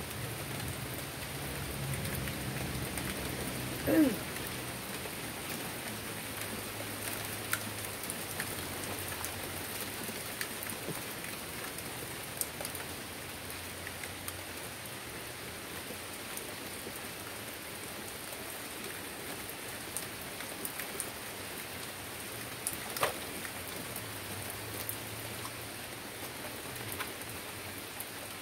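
Steady rain falling on a wooden deck and the leaves around it, with scattered sharp taps of drops. A brief squeak about four seconds in, and a louder single tap near the end.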